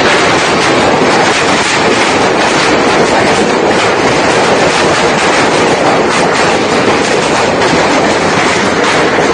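Golf-ball-sized hailstones pelting roofs and the ground in a hailstorm: a loud, steady clatter of countless impacts.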